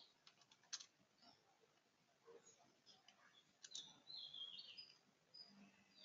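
Faint, scattered computer-keyboard key clicks as text is typed, with faint bird chirps high in pitch through the middle and later part.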